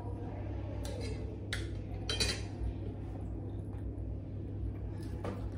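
Spoon clinking against a ceramic soup bowl and dishes a few times, the busiest clatter about two seconds in, over a steady low hum.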